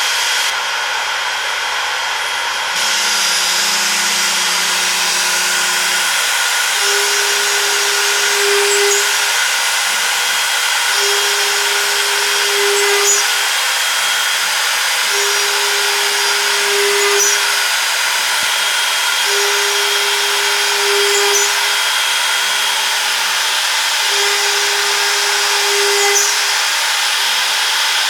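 CNC router running and cutting: a steady spindle whine over machining noise, getting louder a few seconds in, with a lower hum that comes and goes about every four seconds as the machine repeats its passes.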